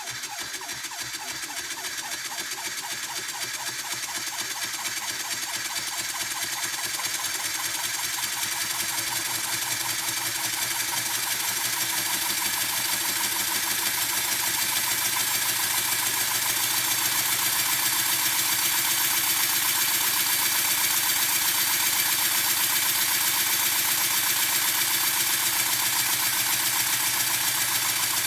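Wooden model steam engine running on compressed air: a rapid, even chuffing of air exhausting from the cylinder with each stroke, over a hiss of air. It grows steadily louder.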